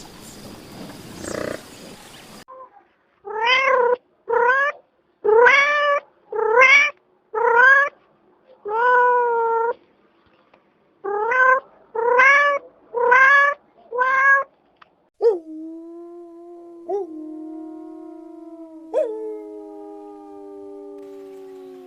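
A domestic cat meowing repeatedly: about ten short calls, each rising in pitch, in a run of six and then, after a pause, four more. It opens with a few seconds of noisy sound, and in the last third come long steady tones that start with a sharp attack and slowly sink in pitch.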